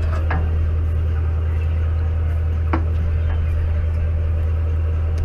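A fishing boat's engine running with a steady low drone.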